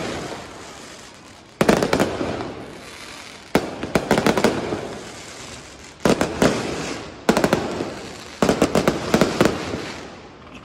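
Aerial fireworks shells bursting, a new volley every one to two seconds. Each volley is a cluster of sharp bangs with crackle, fading into a rumble before the next.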